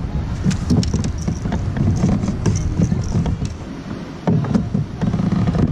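Wind rumbling on the microphone, with scattered clicks and knocks as a bass is handled in a landing net and lifted out.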